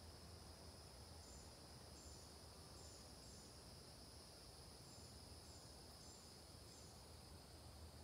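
Faint woodland ambience: a steady high-pitched insect drone, with a bird's short, high, falling chirps repeated about eight times.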